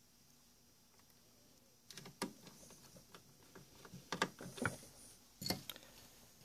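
Light clicks and knocks of hands handling the open underside of a turntable. It is near quiet for about two seconds, then come a string of separate small taps, the loudest in the last couple of seconds.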